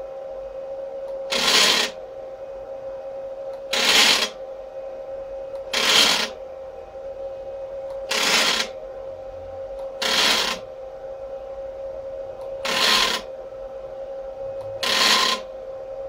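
NEMA 17 stepper motor, run in full-step mode, jogging the CNC axis in short moves: seven brief buzzing bursts about two seconds apart, with a steady hum between them.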